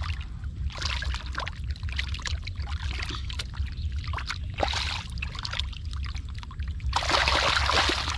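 Water splashing and sloshing as hands work through shallow muddy water, in a run of short, irregular splashes with a longer, louder splash about seven seconds in.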